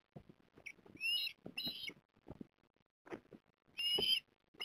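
Eastern ospreys giving short, high whistled calls: a brief note near the start, two more a little after a second in, and one near the end. Scattered low knocks and thuds sound underneath.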